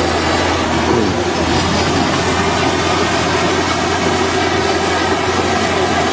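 Amphibious pontoon-track excavator's diesel engine running steadily with a constant low hum, as the machine works its boom and bucket.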